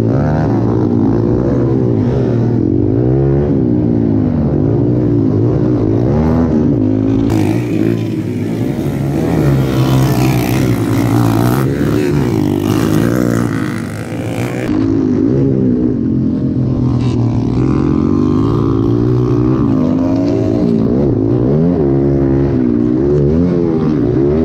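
Motocross dirt bike engine revving hard and falling back over and over as the rider accelerates and shifts on a dirt track. For several seconds in the middle, bikes are heard from trackside instead of from on board.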